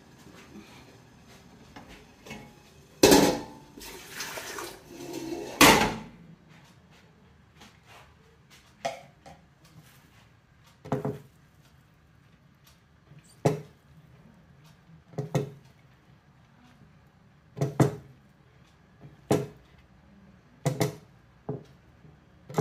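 Hands fluffing steamed vermicelli for seffa in a glazed ceramic dish. A loud clatter about three seconds in lasts a few seconds, then short knocks come every second or two as the hands work the strands in the dish.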